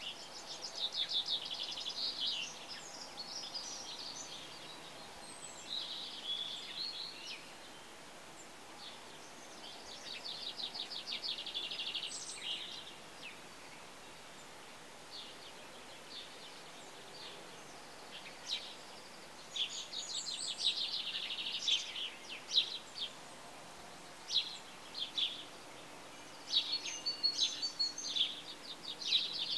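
Songbirds singing: phrases of fast, high trills repeat every few seconds, with gaps of a few seconds between them, over a faint steady background hiss.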